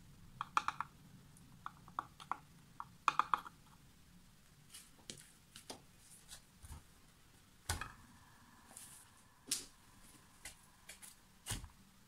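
Scattered light taps and scrapes of a metal palette knife against a wet-paint-covered coaster and turntable, in small clusters near the start, then a few sharper single knocks from hands handling the turntable.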